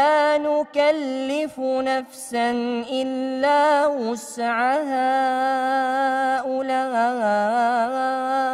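A young man's voice reciting the Quran in melodic, chanted tajweed style. It moves through several short ornamented phrases with brief pauses, then holds one long phrase at a steady pitch through the second half.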